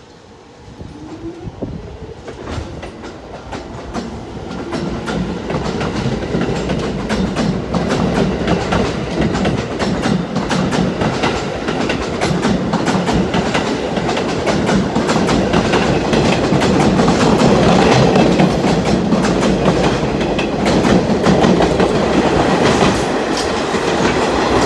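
New York City Subway A train pulling out of the station and picking up speed, its wheels clattering rhythmically over the rail joints. It grows steadily louder as the cars pass close by.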